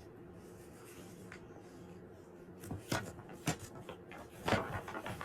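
Faint steady hum, then from about halfway through a handful of soft knocks and rustles of something being handled.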